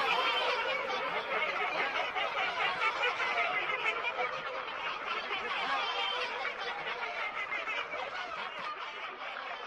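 Snickering laughter, fading out slowly.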